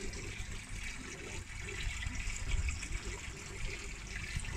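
Aerated koi pond water bubbling and splashing steadily at the surface, where air from the air stones breaks through.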